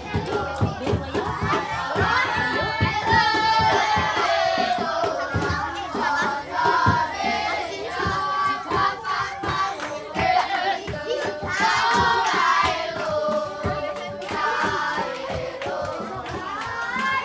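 Group of voices singing a children's tune together over steady rhythmic hand clapping that keeps the beat throughout.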